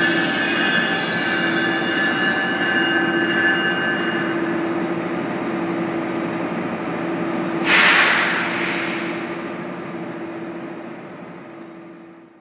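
Amtrak passenger train pulling away: a steady hum with high wheel squeal that dies away after a few seconds, then two short hisses about eight seconds in. The sound fades out near the end.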